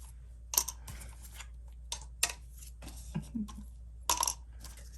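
A handful of light clicks and taps from small plastic mica-powder jars, cups and a stir stick being handled while mixing resin, spaced irregularly, the loudest a quick double click near the end.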